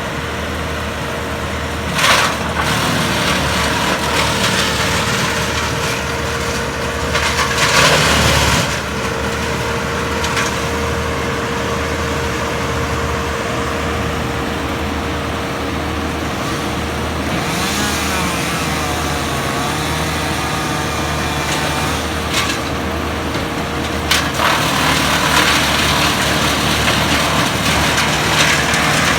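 Wood chipper's engine running steadily, broken by several short bursts of branches being fed in and chipped, with a longer stretch of chipping near the end.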